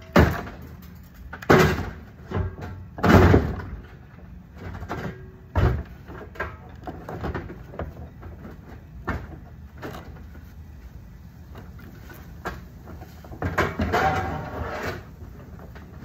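Irregular hard bangs and thuds, about half a dozen spread out, the loudest about three seconds in, then a quicker run of knocks and rattles near the end.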